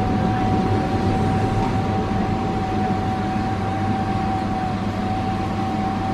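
Pesa Swing 120Na low-floor tram running along the line, heard inside the passenger saloon: a steady rumble of the running gear with a constant whine held at one pitch.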